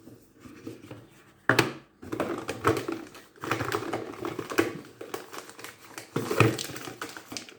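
Hands unwrapping and handling a gift package: irregular clicks, taps and crinkling of wrapping, with a sharper knock about a second and a half in and another near the end.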